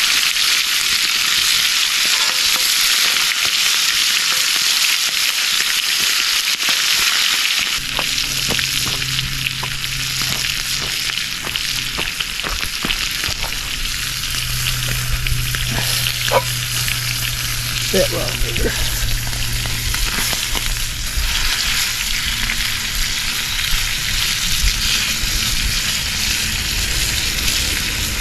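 Grouse meat sizzling as it fries in a cast-iron skillet, steady throughout and a little softer after about eight seconds. Between about eight and twenty seconds in come scattered clicks and scrapes of a fork and knife against the pan as the pieces are turned.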